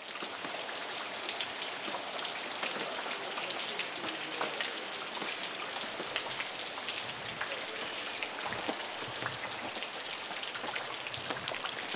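Steady rain falling, a continuous hiss dotted with many small ticks of individual drops landing close by.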